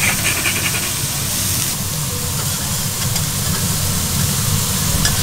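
Beef sizzling steadily on a hot iron griddle, with a few light clicks.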